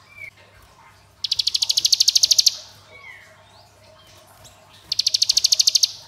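Caged ciblek gunung (a prinia) singing its rapid 'ngebren' song: two bursts of fast, machine-gun-like rattling trill, each a little over a second long, with a short chirp between them.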